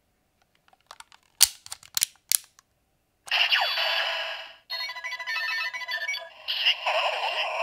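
Kamen Rider Zi-O DX toy belt with the Mirror Zi-O Ridewatch: several sharp plastic clicks as the watch is set and the driver worked, then, about three seconds in, the toy's electronic transformation sound effects start, with a falling sweep, bleeping tones and synthesized music.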